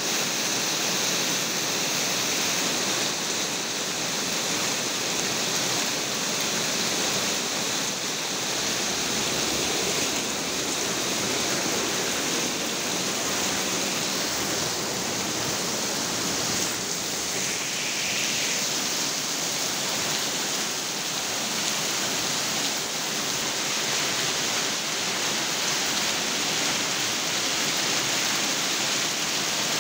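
Hailstorm: hail and heavy rain falling, a steady, dense hiss without a break.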